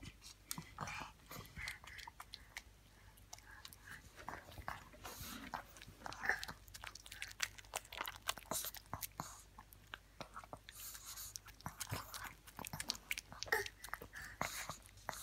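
A dog chewing and licking a soft milk-cream sponge snack held in a hand: a string of small wet smacks and chews, several a second.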